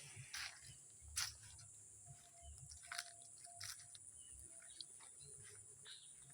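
Faint outdoor ambience: a steady high-pitched insect buzz, with scattered short bird chirps and clicks.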